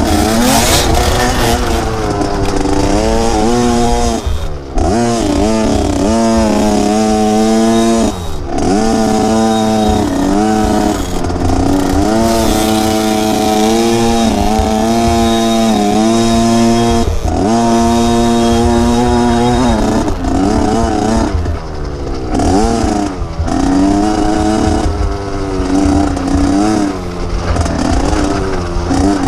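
Small dirt bike engine revving up and falling back again and again as the rider works the throttle and gears, with brief drops in engine speed every few seconds.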